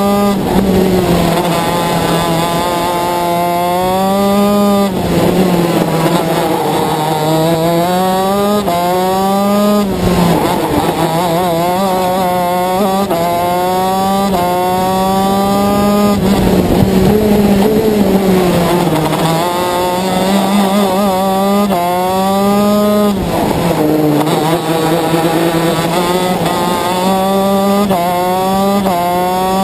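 Shifter kart's 125cc two-stroke engine at race pace, heard onboard: its pitch climbs steeply again and again, dropping sharply at each gear change and falling away more slowly between runs before climbing again.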